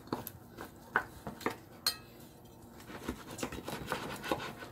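Knife and fork clicking and scraping against a plastic cutting board as smoked beef ribs are sliced apart: a few sharp clicks in the first two seconds, then a quicker run of small clicks near the end.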